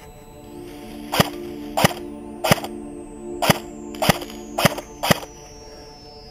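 Seven single semi-automatic shots from a D-Boys KAC PDW electric airsoft gun, each a sharp clack, spaced about half a second to a second apart, over a soft background music bed.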